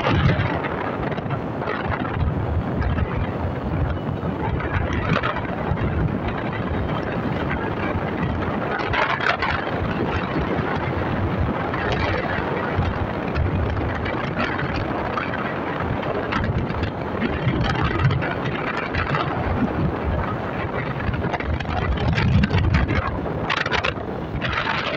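Wind buffeting the microphone on a moving motorcycle, a steady rushing noise that swells now and then, with the bike's engine and road noise running under it.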